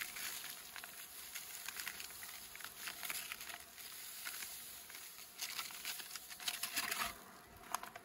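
A paper bag crinkling and rustling with a dry patter as feed is tipped from it into a beehive's top feeder. The rustle stops about seven seconds in, and a single sharp click follows near the end.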